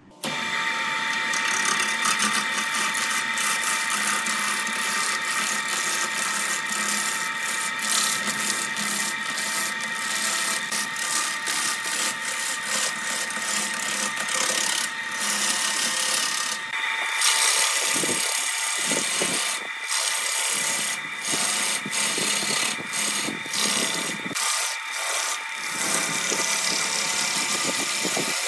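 A wood lathe turns a rough areca palm stump while a hand-held gouge cuts into it. A harsh scraping hiss of the tool on the spinning wood sits over a steady motor whine. The cutting breaks off in short pauses as the tool lifts, more often in the second half.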